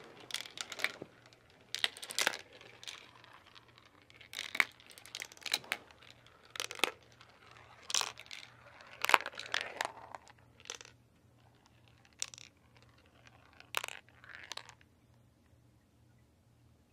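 Marbles rolling and clattering down a plastic marble-run track, with irregular sharp clicks and knocks as they drop through the pieces and land in the catch bowl. The clatter stops about fifteen seconds in.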